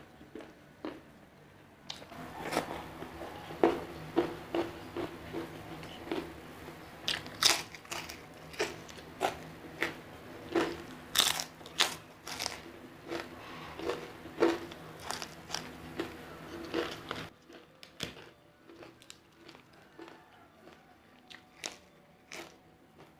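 Crunchy food being chewed close to the microphone: sharp crunching bites at about two a second, turning to quieter, softer chewing near the end.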